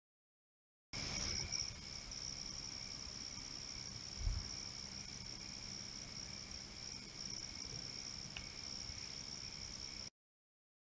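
Steady high-pitched insect chorus that begins about a second in and cuts off near the end, with one short low thump about four seconds in.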